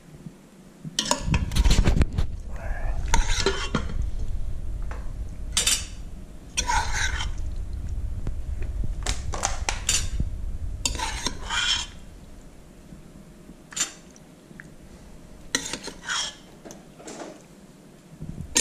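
Metal serving spoon and fork scraping and clinking against stainless steel pots and a plate as pasta is dished out. The clinks and scrapes come thick and fast for most of the time, then thin out to a few near the end.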